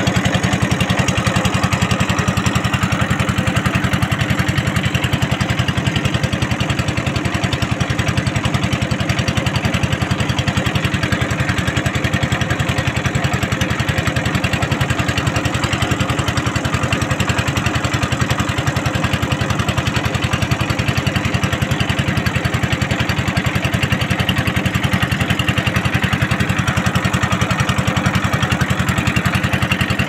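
Boat engine running steadily, with a fast, even chugging that holds without change.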